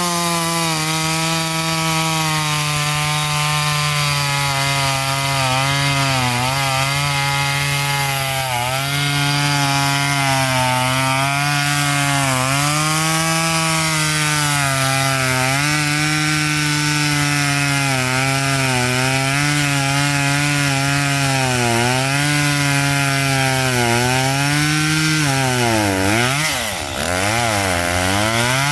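Stihl MS 192 T two-stroke top-handle chainsaw running at full throttle while cutting through a log. Its pitch sags and recovers again and again as the chain bites under load. Near the end the revs drop sharply and climb back up.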